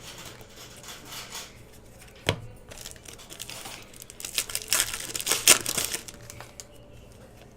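Plastic trading-card pack wrapper crinkling and tearing as a pack is ripped open and handled, with a sharp click about two seconds in; the crinkling is loudest about halfway through.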